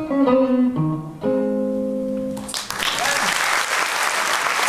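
A guitar plays the song's closing notes and ends on a held, ringing chord. Audience applause breaks out just under three seconds in.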